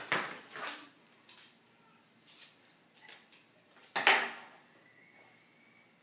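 Steel tape measure retracting and snapping shut, then a few light taps of tools being handled. About four seconds in, a sharp knock as a metal square is set down on the wooden board, followed by a faint pencil scratch as a cut line is marked.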